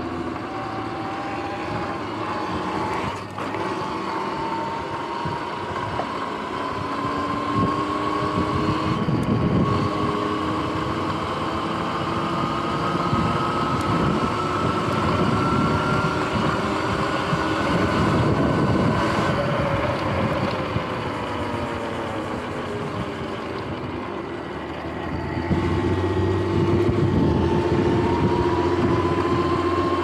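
Sur-Ron X electric dirt bike's motor and drivetrain whining under way, the pitch climbing slowly as it gains speed, dropping and fading about two-thirds through as it eases off, then climbing again near the end. Tyre and wind noise run underneath.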